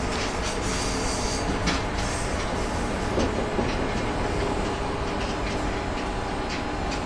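Steady rumble of a moving passenger train, heard from inside the carriage, with wheel-on-rail noise and occasional faint clicks from the track.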